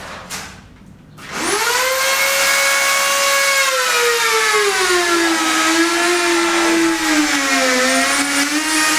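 An electric power tool's motor starting a little over a second in, whining quickly up to speed, then running steadily with its pitch slowly falling and wavering.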